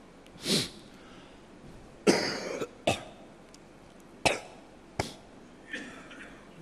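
A man coughing and clearing his throat into a close microphone: several short bursts, the loudest about two seconds in.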